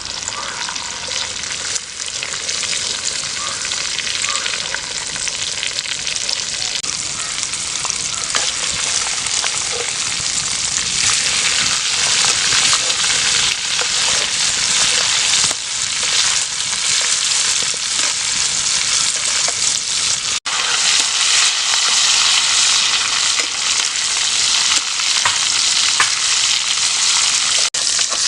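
Food frying and sizzling in hot oil in a pan, a steady crackling hiss that grows louder about eleven seconds in, broken twice by a brief dropout.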